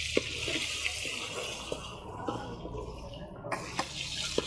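Marinated chicken pieces sizzling in hot oil in a wide metal pan, with a steel spoon scattering small knocks and scrapes against the pan as it stirs and lifts the fried pieces. The hiss drops away for about a second and a half past the middle, then comes back suddenly.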